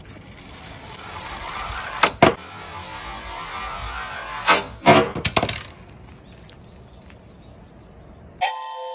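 Tomica die-cast toy truck rolling down a wooden board, its small wheels making a steady rolling noise that builds over the first seconds, with a few sharp knocks about two seconds in and again around five seconds in. Near the end a siren sound starts, with a falling wail.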